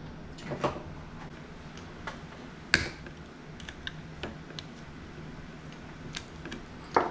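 Scattered light clicks and taps of hand tools and small metal engine parts being handled while the clutch is worked off a Honda CRF150R engine, with one sharper knock a little under three seconds in.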